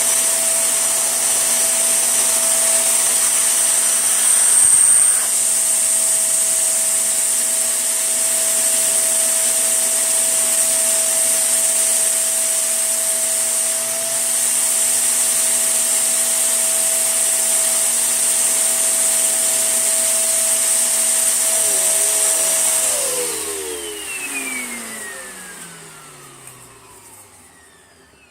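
Tesco Eco Pet V.CU12P vacuum cleaner running steadily with a motor whine and a high rushing hiss. About 23 seconds in it is switched off, and the whine falls away as the motor winds down.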